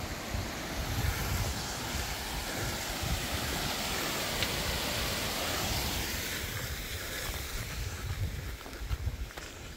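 Meltwater stream rushing beneath a snow bridge, with wind buffeting the microphone. The rushing thins out over the last few seconds.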